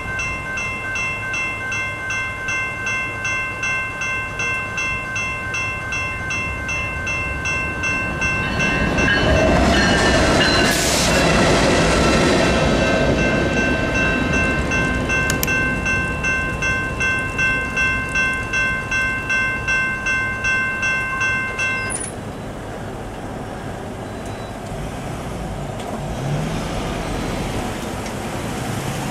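Electronic railroad crossing bell (General Signals Type 2) ringing with steady, regular strikes while two BNSF GE diesel locomotives, an ES44DC and an ES44C4, pass over the crossing; their engines and wheels are loudest about a third of the way in. The bell cuts off suddenly about three-quarters through as the crossing clears, leaving road traffic starting to move.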